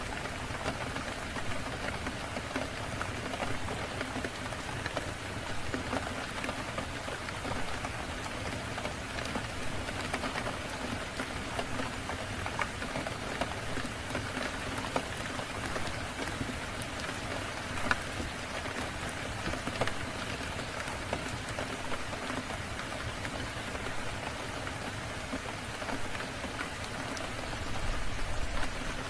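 Steady rain falling, an even hiss with scattered small ticks of drops; one sharper tick about 18 seconds in.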